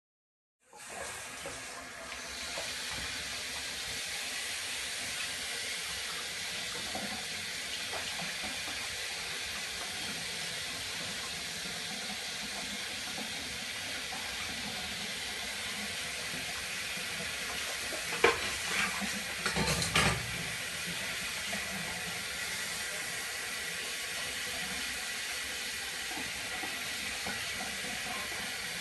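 Water running steadily from a tap into a sink while dishes are washed by hand, with a few sharp clinks and knocks of dishes against each other or the sink about two-thirds of the way through.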